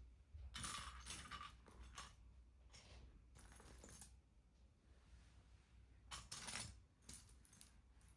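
Faint clicking and clattering of small hard plastic LEGO pieces being handled, in three short spells.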